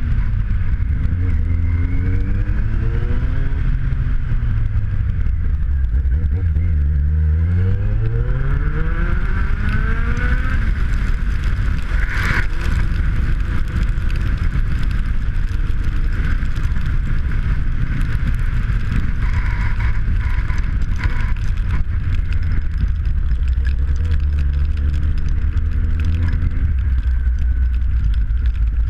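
Kawasaki Z750's inline-four engine running under way, its revs climbing and dropping several times as the motorcycle accelerates and slows. There is a single sharp click about twelve seconds in.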